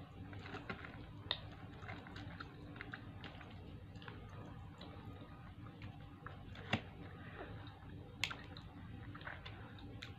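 Quiet close-up eating sounds: soft chewing and fingers pulling meat off a piece of fried chicken, with scattered small sharp clicks. The sharpest two come about two-thirds of the way through, a second and a half apart.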